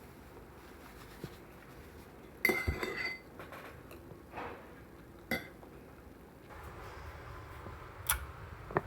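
Spoon and dishes clinking as tableware is handled after a meal: a few sharp clinks and knocks, the loudest with a brief ringing about two and a half seconds in, then lighter ones scattered through.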